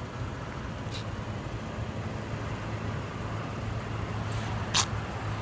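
Steady low hum of an idling car engine, with a short sharp sound near the end.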